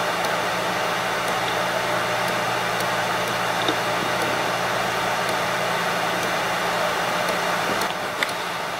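Seagate Barracuda 7200.12 1TB hard drive (7200 rpm) spinning and reading: a steady whir over a low hum, with faint regular ticks about once a second.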